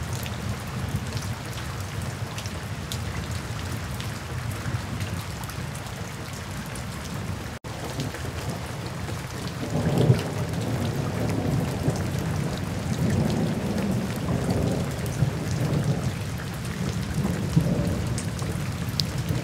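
Steady rain falling on wet pavement, with single drops ticking. About halfway through, a low rolling rumble of thunder rises and swells on and off over the rain. The sound cuts out for an instant shortly before the thunder begins.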